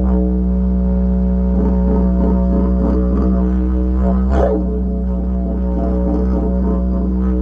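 Didgeridoo playing a continuous low drone, its overtones shifting in a pulsing rhythm, with a brief louder accent about four and a half seconds in.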